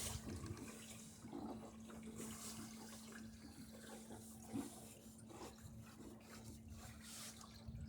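Water lapping and gurgling against the hull of a small sailing dory: faint, irregular splashes, with a steady low hum underneath.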